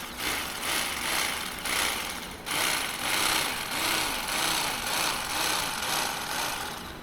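Small handheld power tool cutting and trimming foam in back-and-forth strokes, about one and a half strokes a second, with a brief stop about two and a half seconds in.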